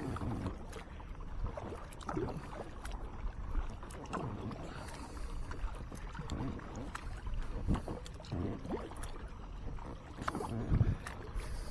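Kayak being paddled: the paddle blades dip and splash about every one to two seconds, with water running along the hull, over a steady low rumble.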